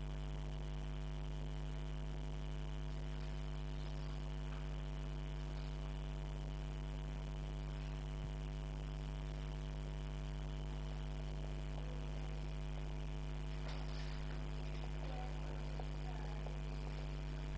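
Steady electrical mains hum, a low constant drone with a ladder of even overtones above it, unchanging throughout.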